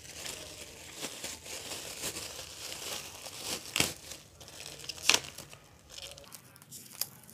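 Clear plastic packaging bag crinkling as a flexible bendy-leg tripod is pulled out of it, then handling noise with two sharp clicks about four and five seconds in and a smaller one near the end.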